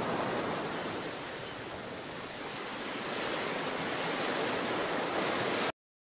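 A steady rushing noise, dipping a little in the middle and swelling again, that cuts off suddenly near the end.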